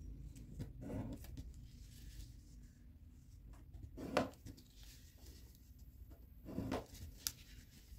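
Paper rustling and creasing as a sheet of origami paper is folded and pressed flat by hand, with brief louder swishes about a second in, in the middle and near the end, followed by one sharp tick.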